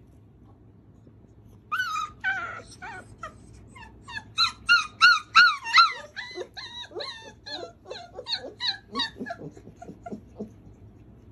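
A four-week-old puppy whimpering and yipping: a run of short, high cries that rise and fall in pitch, starting about two seconds in, loudest in the middle, then growing lower and fainter.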